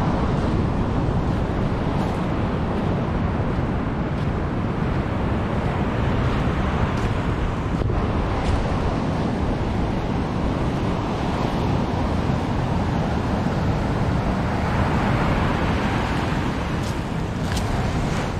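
Surf breaking and washing on a sandy beach, with wind rumbling on the microphone.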